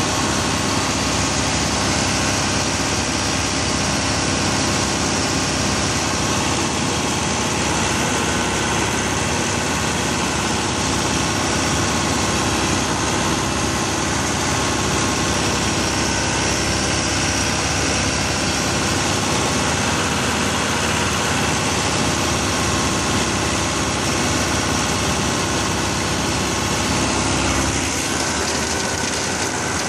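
Case 2140 tractor running steadily while working its front-mounted vine sweeper and rear-mounted Taarup mulcher: a loud, dense, unbroken machine noise that changes slightly near the end.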